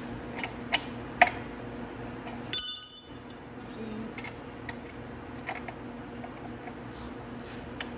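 Metal hand tools clinking and clicking as a wrench is handled at the motorcycle's chain adjusters, with one loud ringing metallic clang about two and a half seconds in, over a steady low hum.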